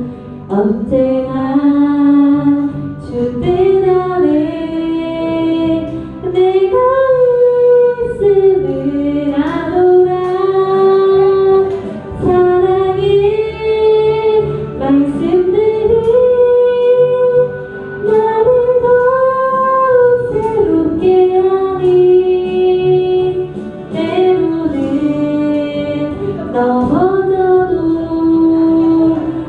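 A woman singing a slow Korean gospel song, holding long notes with vibrato and pausing briefly between phrases, over instrumental accompaniment.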